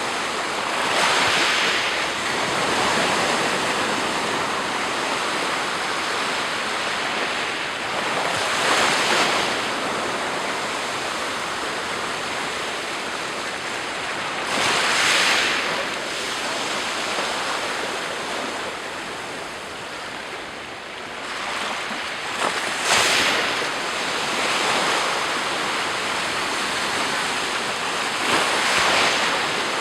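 Black Sea surf: waves breaking on the shore about every six to eight seconds over a steady wash of water.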